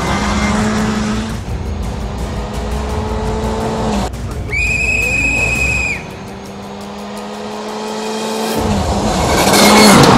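Škoda Fabia R5 rally car's turbocharged four-cylinder engine at full throttle on gravel, its pitch climbing and dropping through gear changes. A high steady whine sounds for about a second and a half a little after four seconds in. In the last few seconds the car approaches and grows steadily louder, peaking as it passes close near the end.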